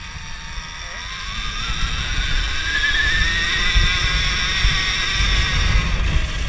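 Alta Redshift MXR electric dirt bike's motor whining, rising steadily in pitch and getting louder as the bike accelerates from about a second in, over a low rumble.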